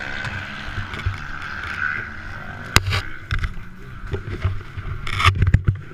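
Distant ATV engines droning under low bumps and wind noise on a helmet-mounted camera. The drone fades about three seconds in, with a sharp click at that point and a short burst of hiss and knocks near the end.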